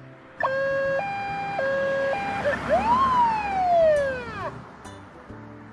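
Police car siren: a two-tone hi-lo alternation of a few changes, then a single wail that rises and falls, stopping at about four and a half seconds, with soft background music underneath.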